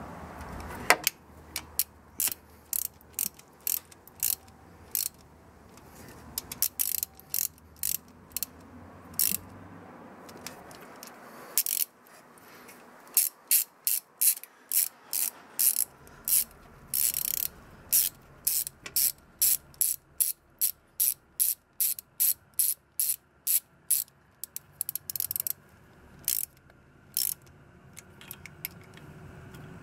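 Ratchet wrench clicking as it turns the water pump bolts on a Corsa 1.2 16v engine, in runs of quick back-and-forth strokes with short pauses between them, fastest and most regular in the middle.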